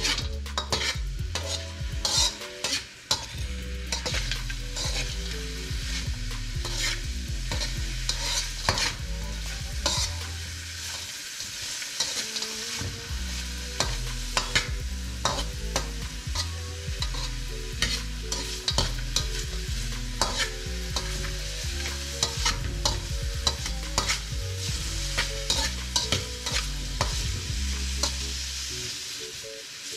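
Frozen peas and carrots sizzling as they fry in a metal wok, stirred steadily with a metal slotted spatula that scrapes and clacks against the pan many times throughout.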